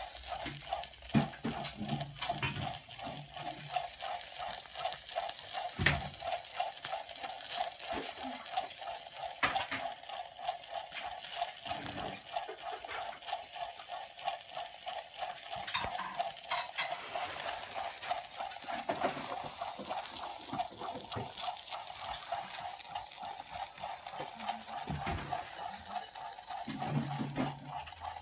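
Circa-1895 Bing toy live steam engine running: a fast, even chuffing from its small cylinder over a steady steam hiss, with a few light knocks and clicks.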